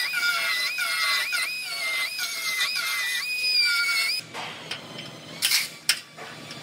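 A cut-off wheel whining at high pitch, its pitch dipping again and again as the wheel bites into the sheet metal of the old radiator support. After about four seconds it stops, and a few short, sharp bursts of noise follow.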